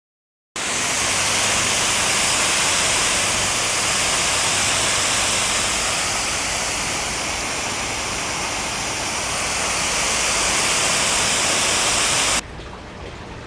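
Steady rush of falling water, a loud even hiss that starts suddenly about half a second in. Near the end it cuts off abruptly and gives way to a quieter, even hiss.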